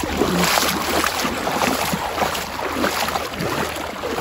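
Wading through shallow water: irregular sloshing and splashing around the legs with each step.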